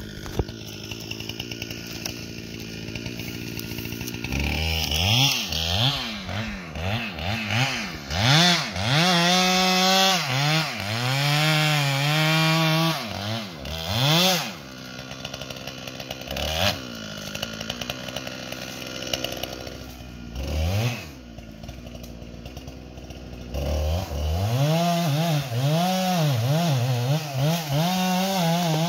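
Ported Husqvarna 395XP chainsaw cutting into the base of a big tree trunk, its engine pitch dipping and recovering again and again under load. About four seconds in it goes into the cut; midway it eases off to a lower level with a few short revs, then goes back into the cut near the end.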